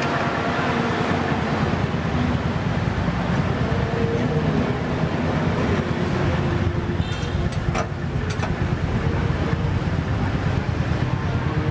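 Steady street noise: traffic with wind buffeting the microphone, and a few light clicks about seven to eight seconds in.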